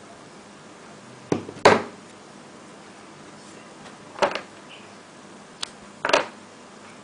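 Paper being handled and folded: about five short crinkles and taps, the loudest near the start, over a steady hiss.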